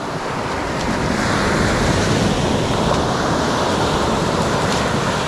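Ocean surf breaking and washing up the beach: a steady rush that swells about a second in.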